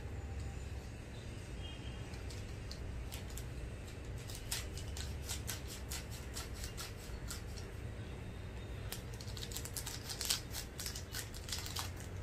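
Maggi instant noodles being crumbled by hand and stirred with a fork in bowls: a run of small crisp crackles and clicks, thicker around the middle and toward the end.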